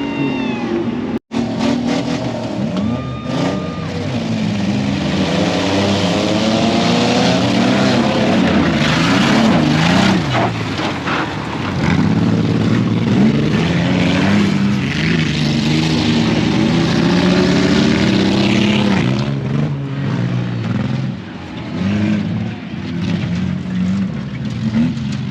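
Off-road race truck engine revving hard, its pitch climbing and falling again and again as the throttle is worked, over a steady rush of noise.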